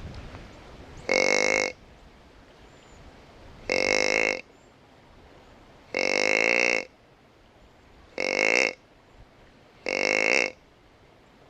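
Whitetail buck grunts: five short, guttural grunts, each under a second, spaced about two seconds apart.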